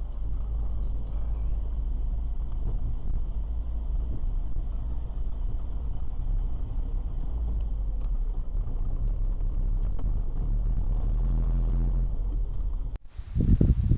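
Steady low rumble of a car driving, with road and tyre noise heard from inside the cabin through a dashcam's microphone. About a second before the end it cuts off suddenly and gives way to irregular low rumbling gusts.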